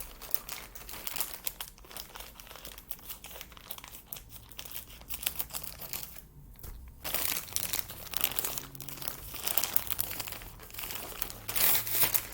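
Packaging crinkling and rustling as a mail-order merch package is unwrapped by hand, with a short pause about six seconds in and a louder burst of crinkling near the end.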